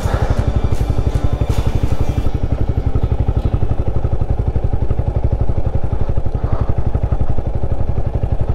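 Royal Enfield Himalayan 450's single-cylinder engine running steadily while riding, its exhaust pulses close and even. A few sharp clicks in the first two seconds.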